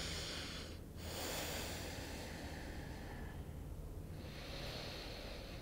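A woman breathing slowly and deeply through the nose: three long, soft breaths, one after another, over a low steady room hum.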